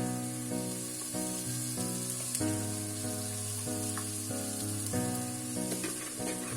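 Ground masala frying in hot oil in a clay handi, a steady sizzle, under instrumental background music with held notes that change about every half second.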